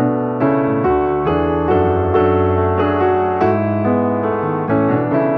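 Background music: a piano playing a steady run of notes at an even, moderate pace.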